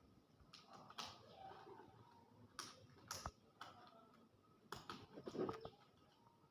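Faint, scattered clicks and light knocks of small objects being handled, the loudest around three seconds and five seconds in.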